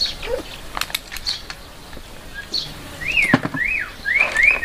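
A myna calling: two slurred rising-and-falling whistles about three seconds in, then a fast run of repeated short whistled notes, about five a second, near the end. A few sharp clicks come before it.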